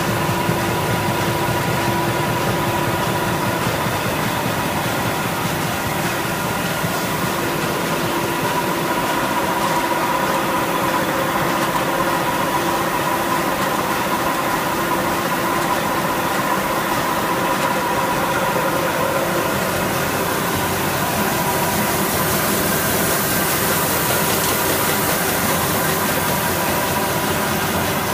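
Van Dam 520 round cup printing machine running: a loud, steady mechanical drone with a constant hum and a whine over it. A hiss swells near the end.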